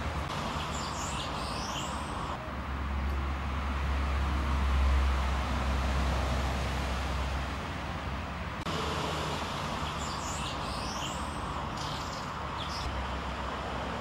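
Small birds singing in the background, high quick twittering phrases for about the first two seconds and again from about 9 to 13 seconds, over a steady low rumble and hiss like distant traffic.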